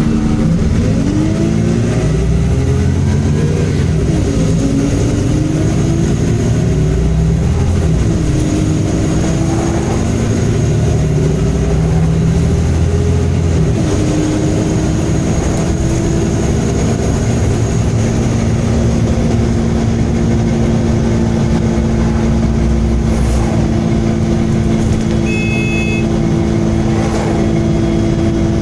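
MAN Enviro 300 bus's diesel engine running under way, its note rising and falling through the gears, then holding steady from about halfway. A short high beep sounds near the end.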